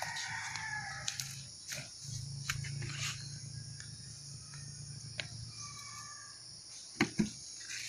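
Outdoor garden ambience: a steady high hiss over a low hum, with a few faint pitched animal calls and scattered short clicks, and two sharper clicks close together about seven seconds in.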